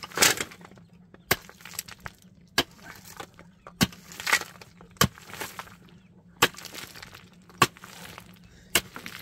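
A pickaxe striking stony, rubble-filled ground in a steady rhythm, about one blow every second and a quarter, with loose stones rattling after some of the blows.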